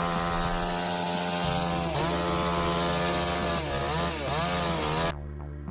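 Chainsaw engine running at high revs through a cut. Its pitch dips and recovers twice as the chain loads up in the wood. It cuts off abruptly near the end.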